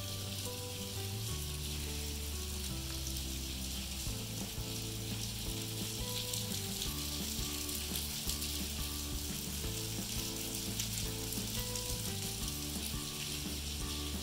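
Steady hiss of heavy rain falling, with soft background music of held low notes changing pitch underneath.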